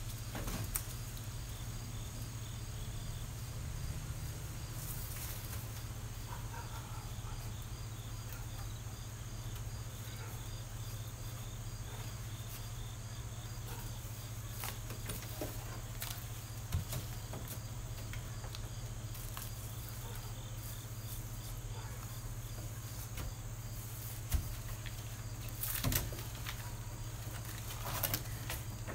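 Steady low hum with a faint, evenly repeating high ticking, broken by a few scattered sharp knocks and clicks.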